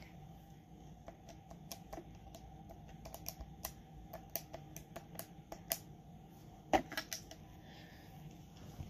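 Light, irregular clicks of buttons being pressed one after another, as a phone number is dialled, over a faint steady hum.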